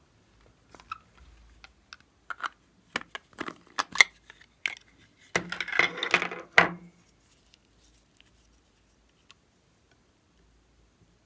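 Light clicks and taps of small hard plastic pieces being handled, then a dense clattering rattle lasting about a second and a half, as a small bottle with a crown-shaped plastic cap is handled close up.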